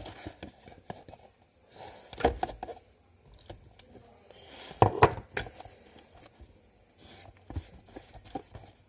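A drinking straw stirring water into glue in a plastic container, with irregular small knocks, scrapes and clicks; the loudest clatter comes about 2 and 5 seconds in.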